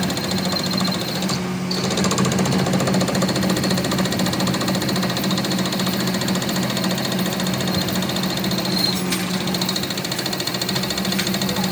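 A workshop machine running steadily with a fast, even rattle and a steady whine.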